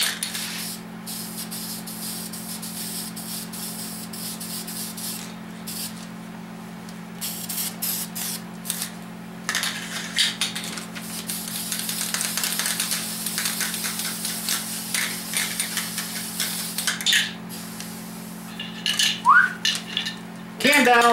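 Aerosol spray can hissing: a few short sprays, then one long spray lasting several seconds, used on freshly painted cylinder heads. A steady low hum runs underneath.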